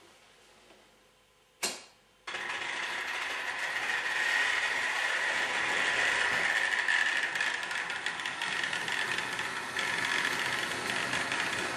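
A sharp click, then a Trix Express H0 model train starting abruptly about two seconds in and running on the track: a steady, dense mechanical whir and rattle of its geared motor and wheels.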